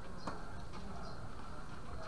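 A tennis ball struck by a racket: one sharp pop about a quarter-second in, over a steady low background rumble.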